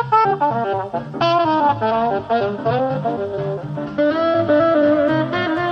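Electro swing music: a jazzy melody line over a steady dance beat.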